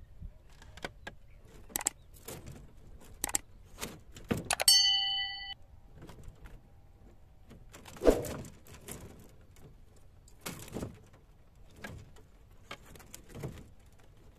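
A few sharp clicks, then a short bell-like ding about four and a half seconds in, the sound effect of a subscribe-button animation. After that come irregular knocks and metal rattles of a wire-mesh cage fish trap being handled in a wooden boat, the loudest a knock about eight seconds in.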